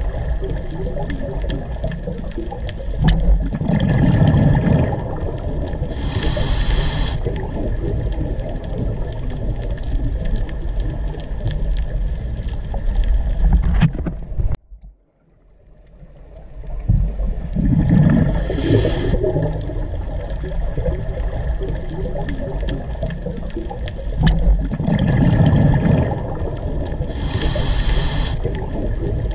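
Continuous water-like ambient sound, gurgling with low rumbling swells every several seconds; about halfway through it drops out almost to silence for a second, then fades back in.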